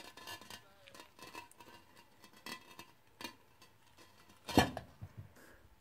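Steel claw hammer clicking and scraping against screw heads in a concrete block as its claw is hooked under a screw head, with one loud sharp metal clank about four and a half seconds in.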